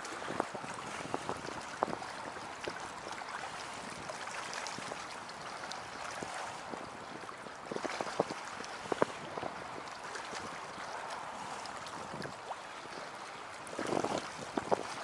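Lake water lapping against the shore and pilings in small waves: a steady watery wash with scattered light slaps and clicks, and a few short splashy surges about eight seconds in and again near the end.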